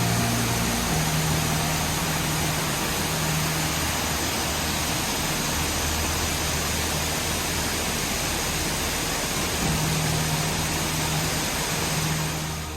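Waterfall rushing steadily, from groundwater-fed falls whose water spills out of the rock face in many cascades. The dense hiss cuts off shortly before the end.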